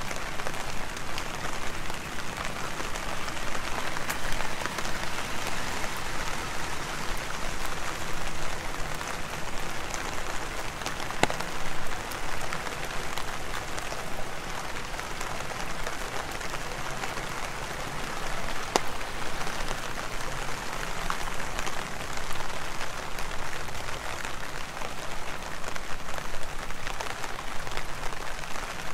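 Heavy rain falling in a steady dense hiss, with a few sharp drop ticks here and there.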